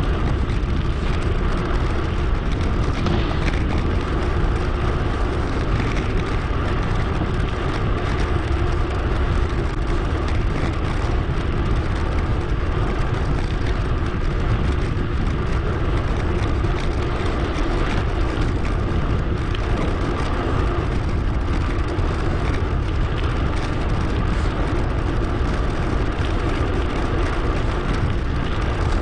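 Steady wind rush and tyre noise from a bicycle ride, picked up by an action camera's microphone and played back sped up to 2.5 times.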